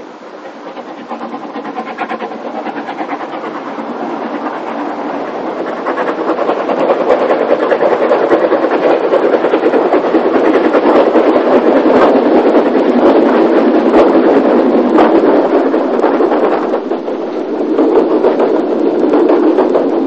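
Isle of Man Railway narrow-gauge steam tank locomotive working hard up a steep bank with a heavy train, its exhaust beats and wheel clatter growing louder as it approaches and passes close by, loudest around the middle. The sound dips briefly near the end and rises again as the rear of the train, with its banking engine pushing, comes by.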